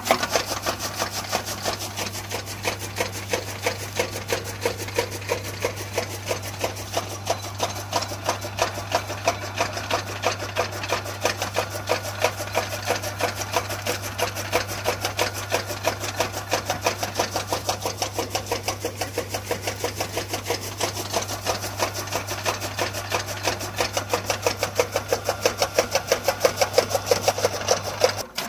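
Electric-motor-driven chaff cutter running, its flywheel blades chopping green fodder with a fast, even clacking over the steady low hum of the motor. The sound stops abruptly near the end.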